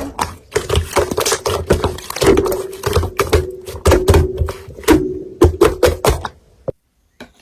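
Rapid, irregular clicking and tapping over background music. It stops abruptly about six and a half seconds in.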